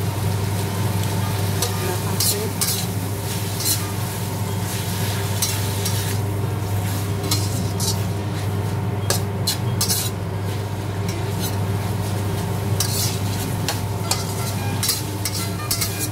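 Stainless spatula stir-frying minced chicken in a wok: irregular scrapes and clacks of the spatula against the pan over a sizzle of frying. A steady low hum runs underneath.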